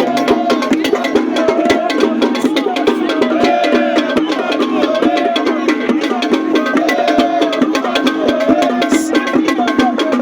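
Music with fast, dense percussion clicks like a wood block, over a melodic line that slides up and down in pitch.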